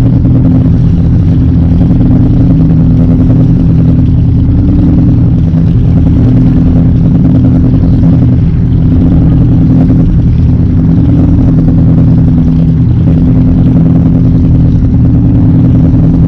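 Boat engine running at a steady speed, a constant low drone with no change in pitch.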